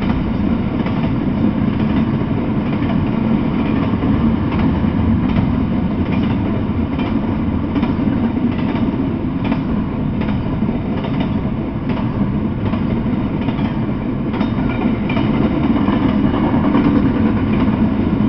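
Double-stack intermodal freight train passing close by: a steady rumble of steel wheels on rail with recurring clicks as the wheels run over the rail joints.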